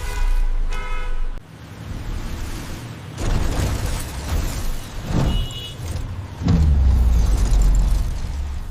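Sound effects of a vehicle: a heavy low rumble, with short whirring mechanical tones in the first second and two heavy hits, one a little after five seconds in and one near six and a half seconds in.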